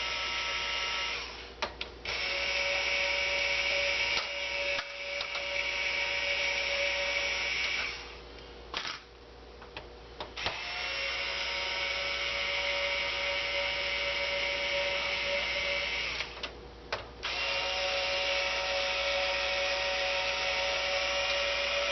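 Electric screwdriver backing out the heat-sink screws on a PS3 motherboard. It whirs at a steady pitch in runs of several seconds, stopping briefly with small clicks between screws.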